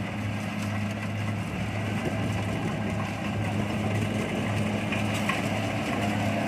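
Kubota DC70 combine harvester's diesel engine running at a steady pitch, a constant low hum.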